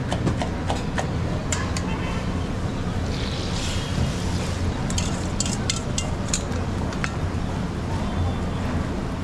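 Street food stall noise: a steady low hum with scattered sharp metal taps and clicks, and a short hiss about three seconds in.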